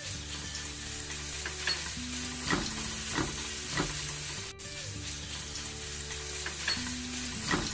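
Minced garlic sizzling in hot oil in a nonstick wok as a spatula stirs it. A few short spatula strokes on the pan come in a quick run around the middle and again near the end.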